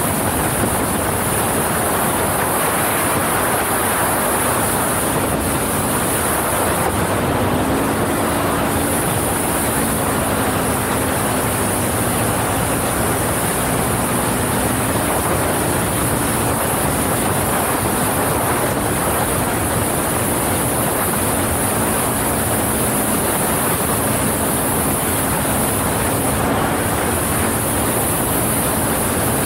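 Wind rushing over the microphone and tyre noise on gravel from a Can-Am Outlander XMR 1000 ATV riding at speed, its V-twin engine running steadily underneath with small rises and falls in pitch.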